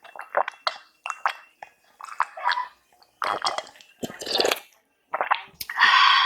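Close-miked mouth sounds of eating young coconut flesh: a run of short, wet chewing and squishing sounds, then a louder, drawn-out wet sound near the end.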